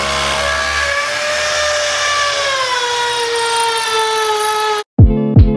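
A Black+Decker electric drill runs steadily as its bit bores into a ceramic-tiled wall, its pitch sinking slowly. The drill cuts off abruptly near the end, and plucked guitar music begins.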